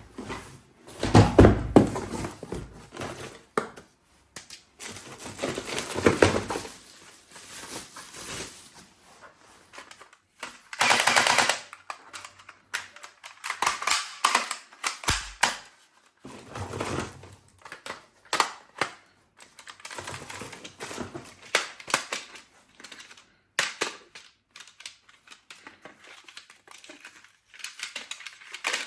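Toy guns and their packaging being handled: irregular clicks and knocks of plastic and metal parts, with a dense rustling burst about eleven seconds in.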